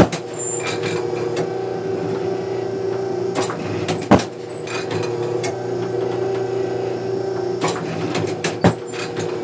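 Automatic clay-target trap machine running with a steady electric hum. Three times, about every four seconds, a short run of mechanical clacks is followed by a single sharp bang, the cycle of clays being thrown during a round of trap.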